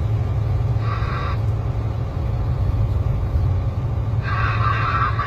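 Steady low rumble of a truck driving on the highway, heard from inside the cab. There are two short higher-pitched sounds, about a second in and again near the end.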